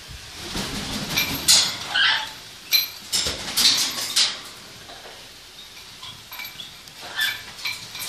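A hand spray bottle misting macaws in a string of short hissing squirts, mixed with wing flapping and squeaky parrot noises.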